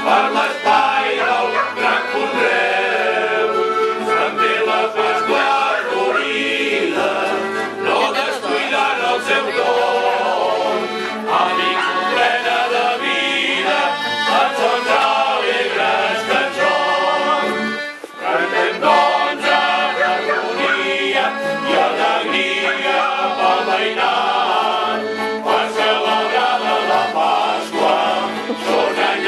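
A men's caramelles choir singing a traditional Catalan Easter song in chorus, accompanied by accordion and acoustic guitars, with a brief break about eighteen seconds in.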